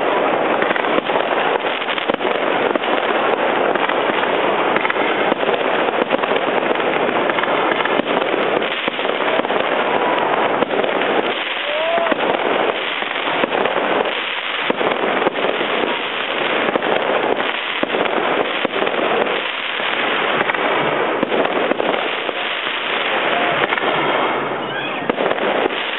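Aerial fireworks going off overhead, an almost continuous crackle of many small sharp pops and bursts that runs without a break.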